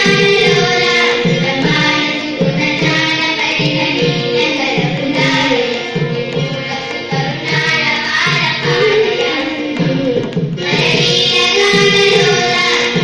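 A choir of girls singing a Carnatic devotional song in unison, accompanied by violin and mridangam, the drum keeping a steady beat.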